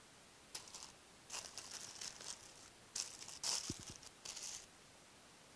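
Clear plastic packaging bag crinkling in several short bursts as a small part is unwrapped by hand.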